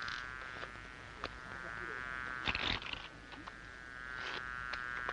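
A steady, slightly wavering buzz with a few sharp clicks of playing cards being handled and dealt on the table.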